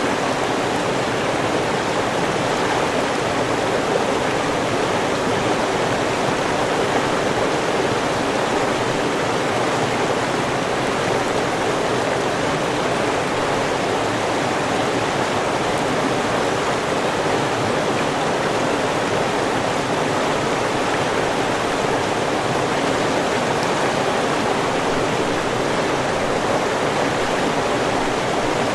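River water flowing over rocks, a steady rushing with no change.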